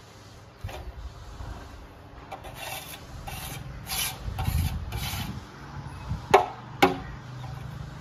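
Plastering tool scraping and rubbing over cement plaster in a run of repeated strokes, with two sharp knocks close together near the end.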